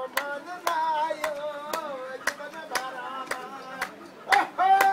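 Voices singing a song, accompanied by hand claps keeping a steady beat of about two claps a second.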